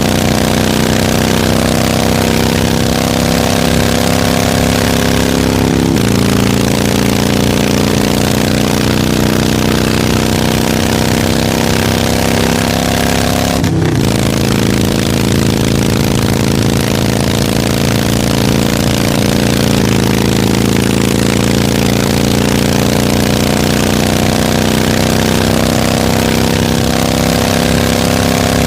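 Harley-Davidson motorcycle's V-twin engine running steadily, its pitch sagging slowly. There are three abrupt breaks, and the one near the middle is a brief dropout.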